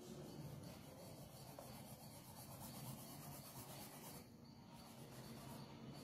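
Faint scrubbing of a paintbrush's bristles across canvas as paint is laid into the shadows, pausing briefly about four seconds in and again near the end.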